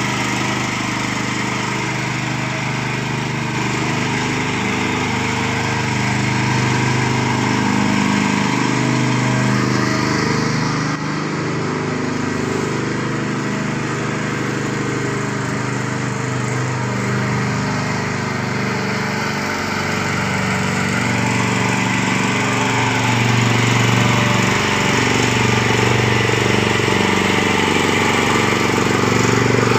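Mini rotavator's small engine running steadily under load as the machine tills the ground, its pitch wavering a little.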